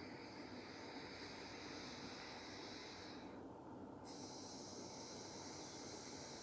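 Slow, deep breathing through one nostril in alternate-nostril breathing (nadi shodhana pranayama), a soft hiss of air: one long breath, a short pause a little after three seconds in, then the next breath starting about four seconds in.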